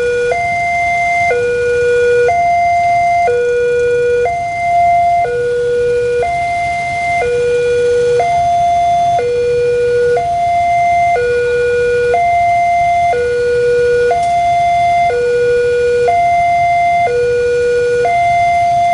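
Indonesian-style electronic level-crossing alarm sounding its warning: a lower and a higher tone alternating steadily, each held about a second.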